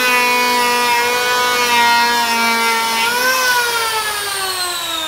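Virutex CE89C chamfering planer's electric motor running with a steady whine as it cuts a chamfer along a board edge. About three seconds in the pitch rises briefly as the cutter leaves the wood, then falls steadily as the motor winds down.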